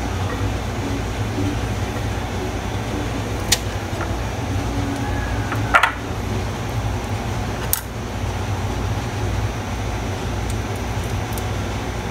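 A steady low machine hum, with three light clicks of a spoon against a bowl as yema mixture is scooped out, about three and a half, six and eight seconds in.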